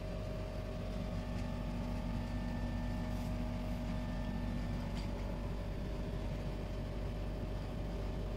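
Steady mechanical hum with a few faint steady tones running through it, and a faint click about five seconds in.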